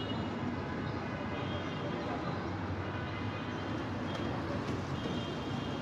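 Steady low rumble of vehicle noise in a street, with faint high-pitched tones coming and going.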